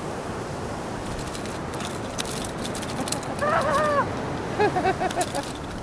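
Steady wash of surf and wind, with a short wavering call about three seconds in and a quick run of five short calls a second later.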